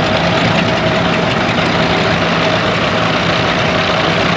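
Antique farm tractor engines running steadily at low speed as the tractors pass, a constant drone that holds one pitch.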